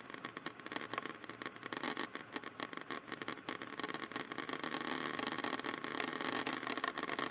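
Cessna 152 in flight, its four-cylinder Lycoming O-235 engine and propeller heard as a faint steady cabin drone, with light crackling.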